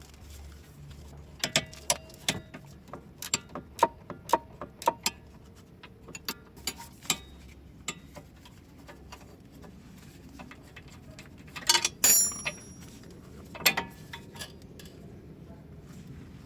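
Metal tool clicks and taps of an 18 mm wrench working the bolts of a car's stabilizer link (sway bar link), about two or three clicks a second for several seconds. About twelve seconds in comes a louder metallic clink with a short ring, and another knock soon after.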